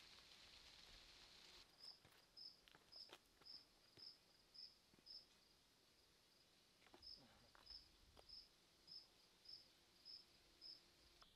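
Faint cricket chirping: a short high chirp repeated evenly about twice a second, with a break of about two seconds in the middle. Before it, for about the first second and a half, a faint steady high insect hiss.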